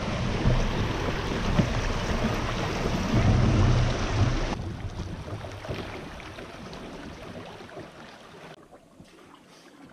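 Rushing water of a shallow, rocky river rapid, with low wind rumble on the microphone. About four and a half seconds in it cuts to a quieter flow of open river that fades away.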